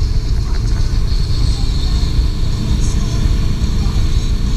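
Motorboat running at speed while towing a wakeboarder: a steady, uneven low rumble of engine and wind on the microphone, with the hiss of the churning wake.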